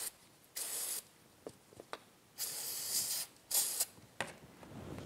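Aerosol can of contact cleaner spraying in three short hissing bursts onto the outside of an outboard carburetor, with a couple of faint clicks between the first and second bursts.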